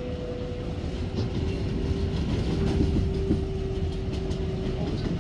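New York City Subway 7 train running on the track: a steady rumble of wheels on rails under a steady motor tone that steps down in pitch about a second in, with a few faint clicks.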